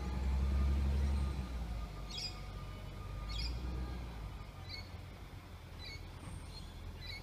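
Low rumble of a distant garbage truck's diesel engine, strongest at first and dying away over the first few seconds, with birds chirping short repeated notes about once a second.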